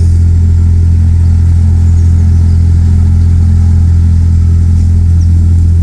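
Narrowboat engine running steadily under way: a loud, even, low hum.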